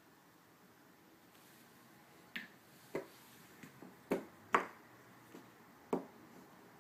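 Sharp clicks and knocks of plastic chess pieces set down on a roll-up vinyl board and of a digital chess clock being pressed during a blitz game. There are about seven in quick succession, the loudest two close together a little past four seconds in.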